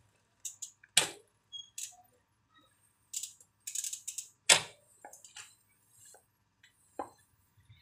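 Irregular sharp clicks and knocks from clipless cycling shoes being unclipped from the pedals of a mountain bike on an indoor trainer and set down on a hard floor. The two loudest knocks come about a second in and about four and a half seconds in.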